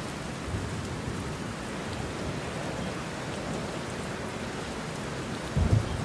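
Steady rain falling, with a low rumble of thunder near the end.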